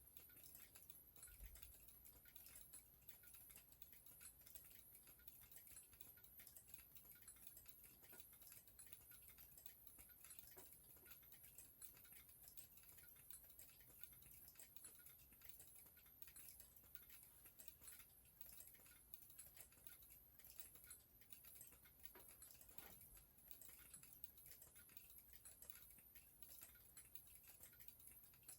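Many remote fire alarm strobes flashing out of sync: a faint, dense, irregular clicking, with the high-pitched squeal of their flash capacitors charging.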